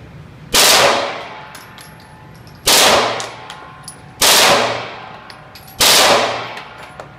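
Glock 18 select-fire 9mm pistol in a carbine conversion kit firing four short fully automatic bursts, each blast echoing briefly before the next. Faint metallic tinkling of spent casings between the bursts.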